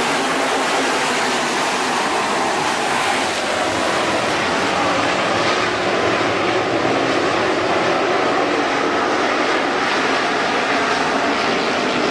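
A field of dirt-track modified race cars running at racing speed, their V8 engines blending into one loud, steady drone.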